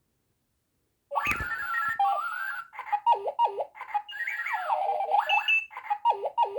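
Clocky robot alarm clock sounding its alarm: a string of chirping, warbling electronic beeps that swoop up and down in pitch, starting about a second in with a knock.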